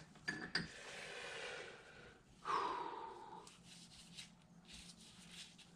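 A person sniffing and breathing close to the microphone while smelling a freshly pulled transmission bearing for a burnt smell. There are two light clicks near the start and a stronger sniff or breath about two and a half seconds in.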